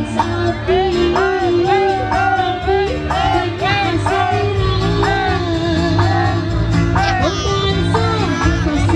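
Live Sundanese karinding ensemble music: a voice sings a high melody that slides up and down in short ornamented arcs over a steady low drone and light percussive strokes.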